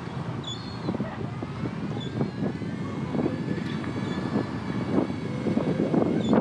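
Busy outdoor ambience: a steady background rumble with many irregular short knocks and a faint, slowly changing whine.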